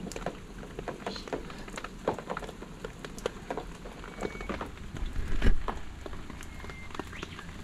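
Scattered light ticks and taps at an uneven pace, with one louder dull thump a little past halfway.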